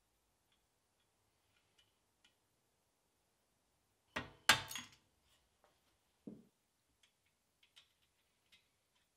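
A quick run of metallic clinks and knocks about four seconds in, then a single duller knock a couple of seconds later, with a few faint ticks around them: metal parts or tools being handled.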